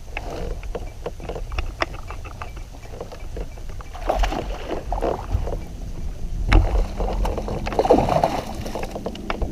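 Handling noise aboard a fishing kayak on the water: scattered clicks and knocks of gear against the hull, with a few louder swishes of water or movement about four seconds in and again near the end, over a low rumble.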